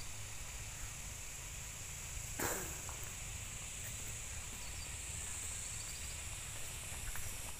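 Steady high insect drone over a low rumble, with a single knock about two and a half seconds in.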